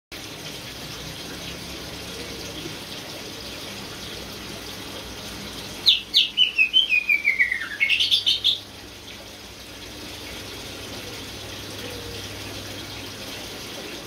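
Caged green leafbird (cucak ijo) singing a single burst of about a dozen quick notes, stepping down in pitch and then climbing back up, about six seconds in. A steady hiss runs underneath.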